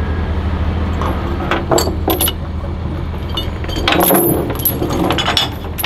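Steel tie-down chain clinking and rattling as it is handled and hooked, in a cluster about a second in and another near four seconds, over a low steady hum that fades about four seconds in.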